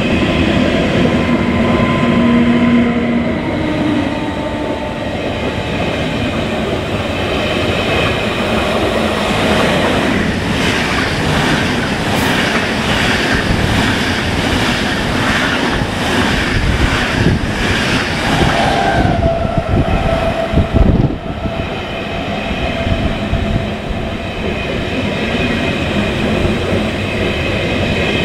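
Train running through the station, its steady rumble broken in the middle by a run of evenly spaced wheel clacks over rail joints.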